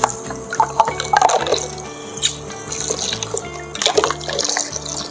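Water running from the pump-fed tap of a battery-powered toy sink and splashing into the basin, with plastic toy fruit knocking and clicking as it is handled under the stream. Background music with a steady rhythm plays underneath.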